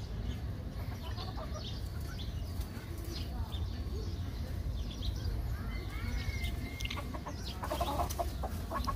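Sebright chickens clucking, with scattered short calls at first and a quick run of repeated clucks near the end, over a steady low rumble.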